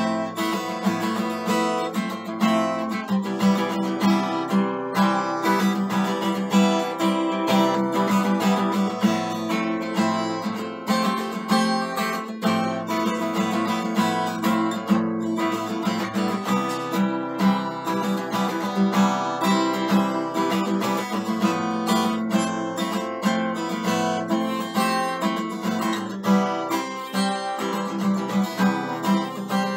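Acoustic guitar played solo: chords strummed and let ring, in a continuous steady rhythm.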